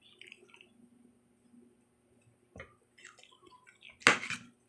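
Eating sounds at a meal: faint small clicks and a knock, then a short, louder noise about four seconds in.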